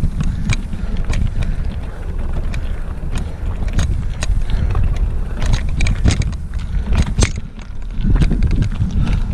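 Wind buffeting the microphone of a mountain bike's action camera as the bike rides over rough ground, with frequent sharp clattering knocks from the bike rattling.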